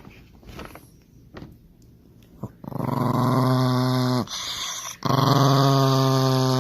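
A dog giving two long, low, steady growls, the second a little longer, each dropping slightly in pitch as it ends.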